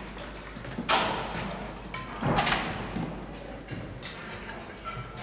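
Two heavy thuds about a second and a half apart, the second a short cluster of knocks, with a few lighter knocks and clicks after them.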